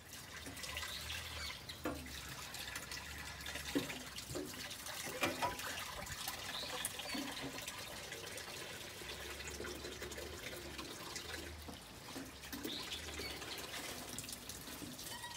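Water running from a tap into a sink while dishes are washed by hand, with a few light clinks of crockery.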